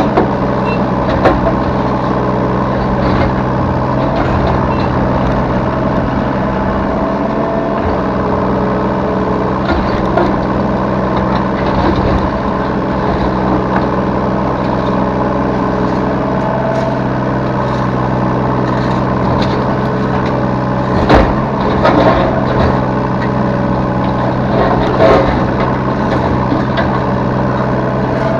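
Yanmar B3 Sigma 3-tonne mini excavator's diesel engine running steadily, heard from the operator's seat, with scattered knocks and clanks, the loudest about 21 seconds in and another around 25 seconds.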